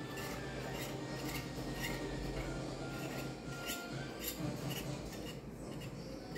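Metal wire whisk beating batter in a bowl, scraping and clicking against the bowl's sides in quick, irregular strokes.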